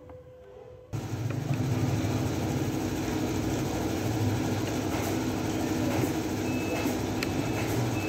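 A heavy engine running steadily with a low hum, cutting in suddenly about a second in. A few short high beeps sound over it near the end.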